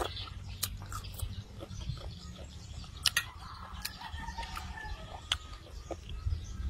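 A person eating: chewing with sharp mouth smacks and clicks, the loudest about three seconds in, over a steady low hum, with faint animal calls in the middle.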